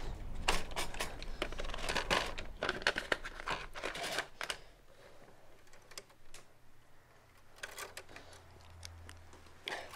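Paper rustling and a portable manual typewriter's platen and carriage clicking as a sheet is pulled out and fed in, dense for the first four and a half seconds, then a few scattered clicks. A faint low hum lies under the last couple of seconds.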